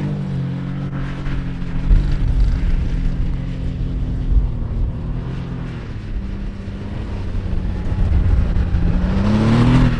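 A car engine running at steady revs, its pitch sagging about six seconds in and rising again near the end as it picks up speed.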